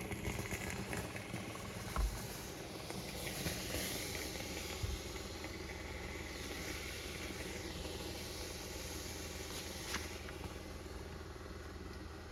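Steamer running, giving off a steady hiss of steam as it is played over a comic book's cover to humidify and relax the paper for pressing. A few light knocks come in, the loudest about two seconds in.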